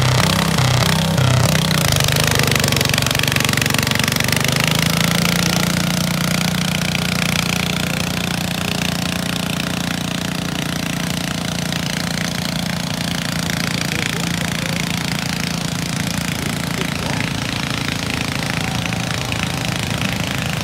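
Small garden tractor engine running loud and hard while pulling a weight-transfer sled. Its note wavers for the first couple of seconds, then holds steady.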